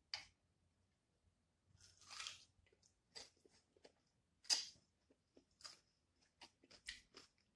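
Close-up bites and chewing of a raw cucumber spear dipped in sauce: faint, separate wet crunches about a second apart, the loudest about four and a half seconds in.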